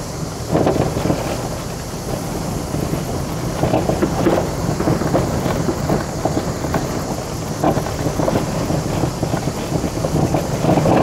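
Citroën Saxo driving over a rough road of broken tarmac and loose gravel, heard from inside the cabin: a steady engine and road hum with a busy crunching and knocking of tyres and bodywork over stones and potholes, busier from about three and a half seconds in.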